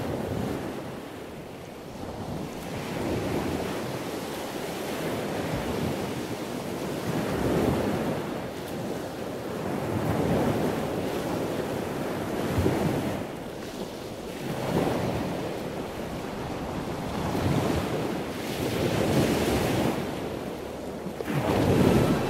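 Ocean surf: waves breaking and washing in, the rush swelling and falling back every few seconds, with wind.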